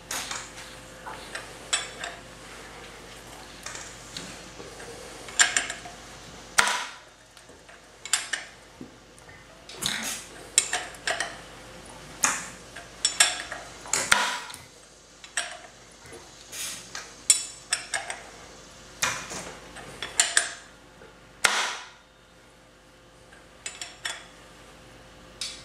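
Irregular metallic clicks and clinks, about one or two a second, from a wrench and tools working as an engine is turned over slowly by hand for cam timing. A faint steady hum runs underneath.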